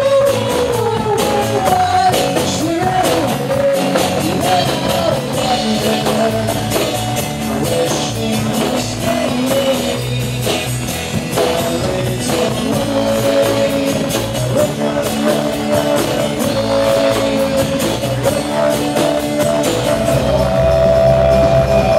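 Live rock band playing a song with singing, acoustic guitar, electric bass and drum kit.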